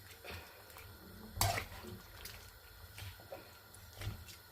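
Chicken stew in coconut milk being stirred in a pan: wet liquid sloshing with a few soft knocks of the spoon on the pan, the loudest about a second and a half in.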